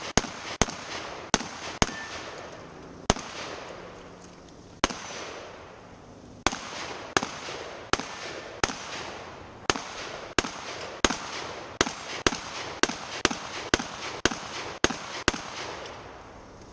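Semi-automatic shotgun fired rapidly in a 3-Gun stage, about two dozen sharp shots. They come in quick strings of two or three a second, broken by pauses of one to two seconds.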